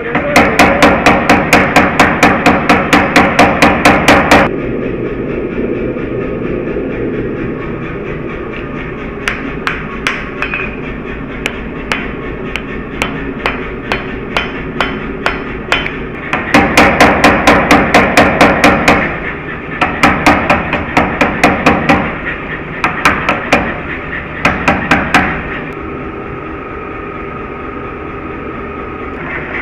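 Hammer blows on red-hot shear steel on an anvil: two bursts of rapid, evenly spaced ringing strikes, with looser single blows between, over a steady background noise from the forge.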